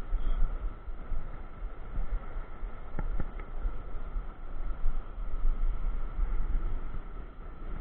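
Wind rumbling on the microphone over the steady wash of sea waves breaking on the rocks below a cliff, with two faint clicks about three seconds in.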